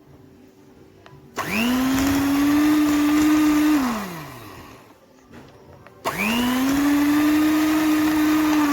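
Electric hand mixer beating crumbly pasta frola dough in a bowl. It is switched on about a second and a half in, runs at a steady whine for a couple of seconds and winds down, then is switched on again about six seconds in and runs steadily.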